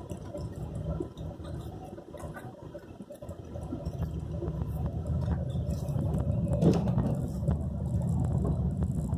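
Car driving on a rough road, with low engine and tyre rumble. It dips a couple of seconds in, grows louder from about four seconds on, and has a brief louder jolt about two-thirds of the way through.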